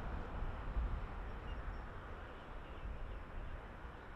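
Diesel-hauled heritage passenger train passing at a distance: a steady low rumble of locomotives and carriages on the rails.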